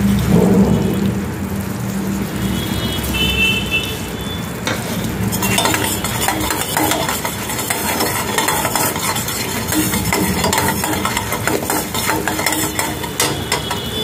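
Honey-garlic sauce sizzling and bubbling in a stainless steel pan while a metal spatula stirs it, scraping and clicking against the pan.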